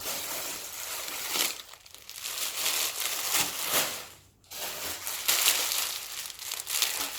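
Packaging being handled and rummaged through while unboxing clothes: continuous rustling and crinkling with a few sharper crackles. It stops briefly about four seconds in.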